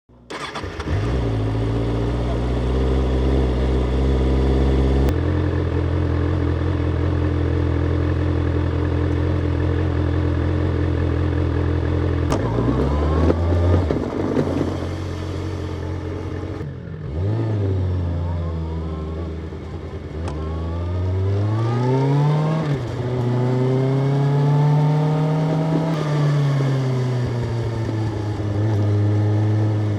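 Kawasaki Ninja ZX-6R inline-four engine and exhaust running at a steady pitch for about the first twelve seconds, then rising and falling in pitch several times as the bike accelerates and eases off. The longest climb comes about three-quarters of the way through.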